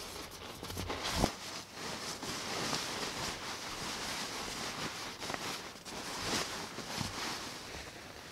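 Rustling of a sleeping bag and tent fabric as a person climbs into the bag on a foam sleeping pad, with a soft thump about a second in.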